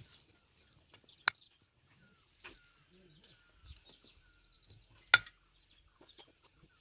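Two sharp knocks about four seconds apart, the second louder, with faint bird chirps in the background.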